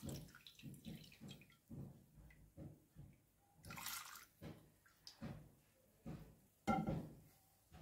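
Frying oil draining from a pan into a steel bowl, now only faint drips from the pan's rim about every half second. Two louder knocks come about four seconds in and near the end.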